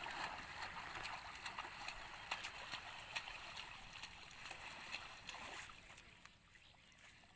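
Faint sloshing and swishing of shallow floodwater as a bamboo-framed push net is shoved through it, with small crackles, getting quieter near the end.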